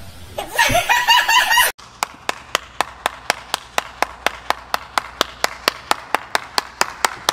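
One person clapping slowly and evenly, about four claps a second, starting abruptly after a short burst of a voice.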